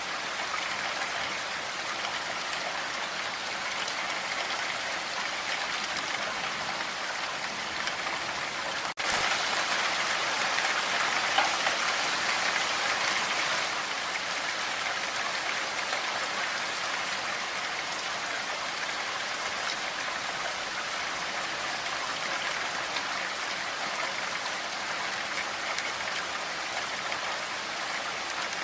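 Steady rain falling: a dense, even hiss of drops. About nine seconds in it drops out for an instant, then runs a little louder for a few seconds before settling back.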